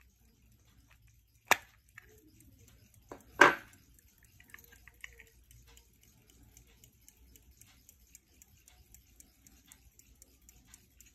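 A blade pries at the case back of a 1970s Westclox Conductor pocket watch. It clicks once, then the back pops off with a sharp snap about three and a half seconds in. After that the watch movement ticks faintly, fast and even.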